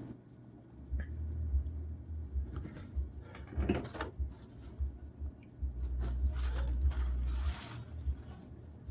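A man breathing and sniffing through his nose while a sneeze builds, in a few soft swishes, with low rumbling thumps underneath.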